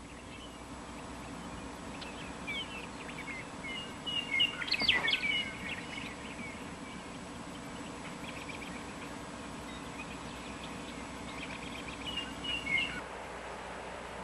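Small birds chirping in short scattered runs over a steady low hum and hiss, the busiest and loudest run about five seconds in and another near the end.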